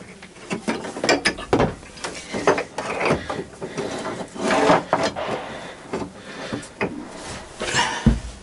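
Pipe wrench clicking, scraping and knocking against a seized through-hull fitting as it is gripped and worked to break it loose, with a heavy thump near the end.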